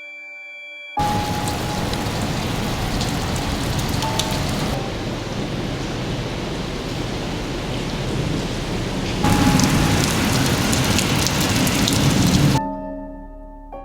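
Hurricane rainstorm: heavy rain pouring with storm wind, a steady loud rush. It comes in three clips cut together, the last the loudest, with soft background music at the start and the end.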